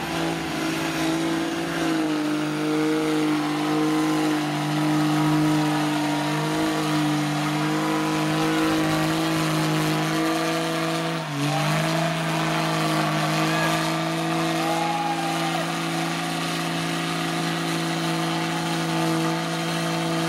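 Lifted Dodge Ram mud truck's engine held at high revs as its paddle tires churn through deep mud, a steady engine note with a brief dip about eleven seconds in before it climbs back up.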